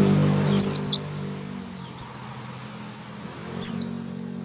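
White-eye (pleci) giving its short opening calls (ngecal), the warm-up before full song: four quick high chirps, each sliding down in pitch, a close pair about half a second in, then single ones about two seconds and three and a half seconds in, over a low steady hum.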